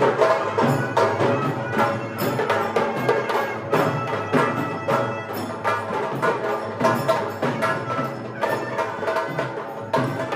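Temple ritual music: a held, droning reed wind melody over dense, rapid drum and percussion strikes.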